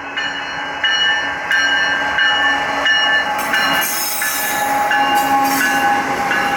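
CN double-stack container train cars rolling past on the siding, with thin, high wheel-squeal tones that come and go over the rolling noise. It gets louder about a second in.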